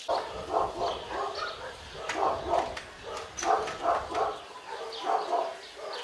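Dogs barking repeatedly in kennels, many short barks overlapping one another.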